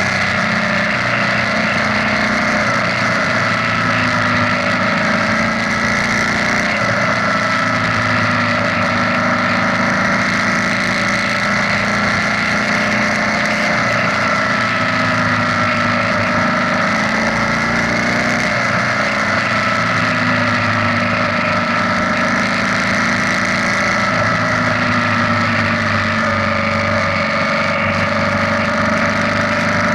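BMW R nineT's 1170 cc boxer-twin engine running at a steady cruise, its note drifting gently up and down, over a steady rush of wind and road noise, inside a road tunnel.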